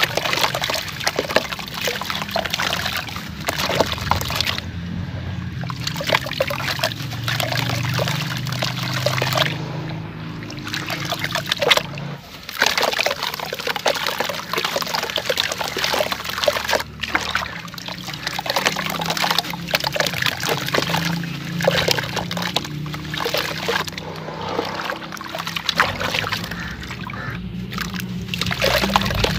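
Moulded cylinders of gritty dirt crumbled by hand into a basin of water: a continuous pattering and splashing of crumbs and grit dropping into the water, dense with fine crackles and broken by a few short pauses.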